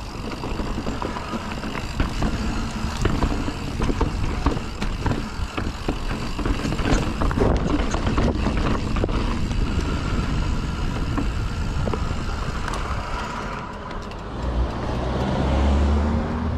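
Mountain bike riding down a dirt trail: tyres rolling over the dirt, with many sharp knocks and rattles from the bike over bumps. Wind rumbles on the camera microphone, heaviest in the last couple of seconds.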